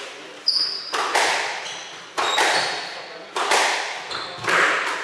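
Squash rally: the rubber ball is struck by racquets and cracks off the court walls about six times, each hit sharp and followed by a hall-like echo. Short high squeaks of shoes on the wooden floor come between hits.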